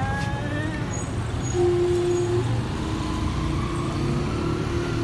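Street traffic: a steady low rumble of car and motorbike engines, with a few faint held tones, one about a second and a half in.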